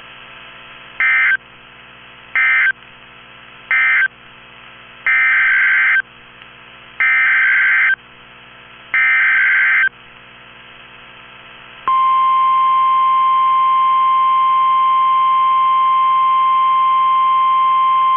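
NOAA Weather Radio SAME data bursts: three short buzzing bursts of digital tones that end one alert message, then three longer bursts that begin the next, over a faint hum. About twelve seconds in, the steady 1050 Hz weather radio alert tone starts and holds, announcing the new alert.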